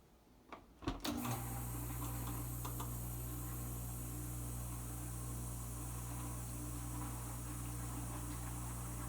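Kenmore Ultra Wash 3 dishwasher starting its Quick Rinse cycle: a few clicks about a second in, then its pump motor starts and runs with a steady hum.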